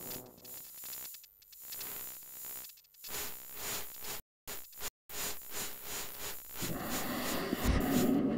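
Electronic static and hiss with a crackling texture and faint held tones, cut to dead silence twice about halfway through, then growing louder and denser near the end.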